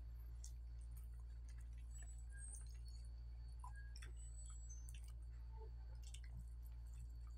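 Quiet hand-eating sounds: soft chewing and fingers picking at food on a banana leaf, heard as scattered faint small clicks and squishes over a steady low hum.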